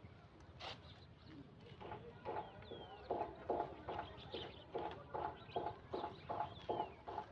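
Faint clucking of a chicken, short calls repeated about two to three times a second, starting about two seconds in.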